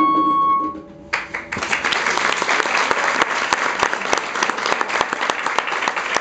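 The band's last held note dies away just under a second in; the audience then breaks into applause about a second in, building quickly and carrying on as steady clapping.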